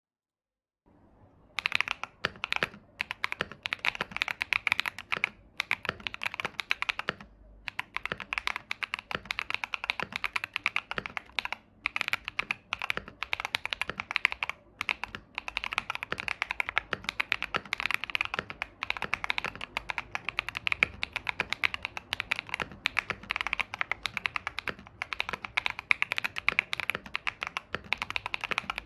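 Continuous fast typing on a Tofu65 mechanical keyboard with Akko Cream Blue V3 tactile switches, a creamy, poppy clack of keystrokes, with a few short pauses.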